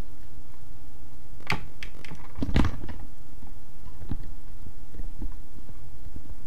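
Plastic tubing and a push-connect tee fitting being handled and pressed together, giving scattered sharp clicks and knocks. The loudest come about two and a half seconds in, followed by lighter ticks.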